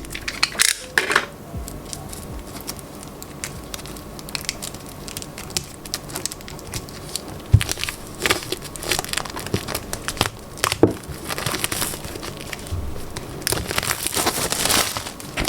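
Wrapping crinkling and tearing as a manga volume is unwrapped by hand, in irregular bunches of crackles and rustles.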